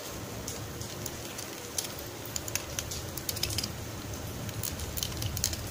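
A 3.5–4 mm drill bit in a homemade toothbrush-handled hand drill, turned by hand against the rivet of a diecast toy car, making irregular small clicks and scraping as it cuts the rivet out to open the car.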